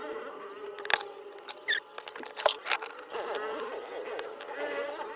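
Sharp small clicks and taps from work on a phone during a charging-jack replacement, over faint wavering squeaky chirps.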